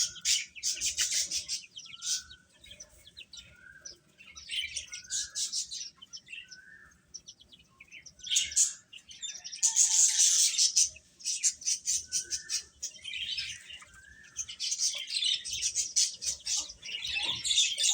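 Baby chicks peeping: rapid, high chirps in busy bursts with short lulls.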